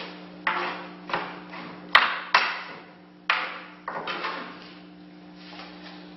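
A large kitchen knife chopping hard onto a wooden cutting board: about seven sharp blows at uneven intervals in the first four seconds, each ringing out briefly in the room, over a steady low hum.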